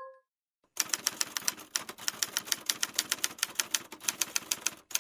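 Typewriter typing sound effect: a fast, even run of key clicks, about five a second, starting about a second in and pausing briefly near the end.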